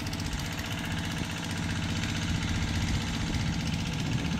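Four-cylinder turbocharged engine of a crop-spraying vehicle idling steadily.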